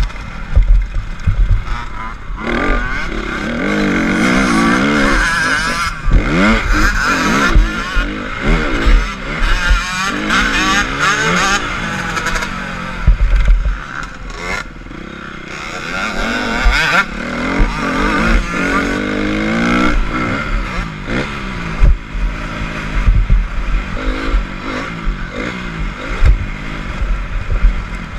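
Honda CRF250 dirt bike's four-stroke single-cylinder engine revving hard, its pitch rising and falling again and again as the rider opens and closes the throttle, easing off briefly about halfway. Wind buffets the microphone throughout.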